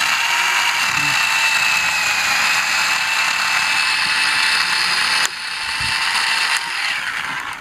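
Chainsaw running at high revs while cutting into a tree trunk, with a steady whine. It dips briefly about five seconds in, then picks up again and eases off near the end as the tree starts to fall.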